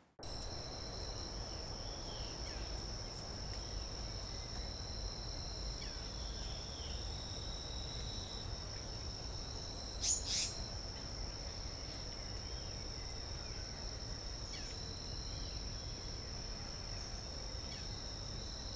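Insects trilling steadily in two high, unbroken tones, over a low background rumble. Faint short calls sound now and then, and a brief sharp chirp stands out about halfway through.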